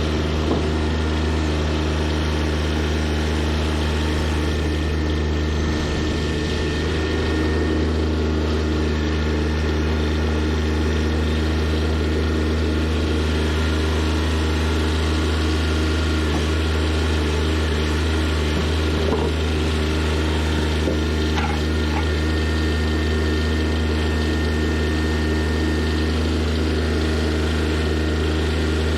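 An engine running steadily at one even speed, a deep constant hum with no revving.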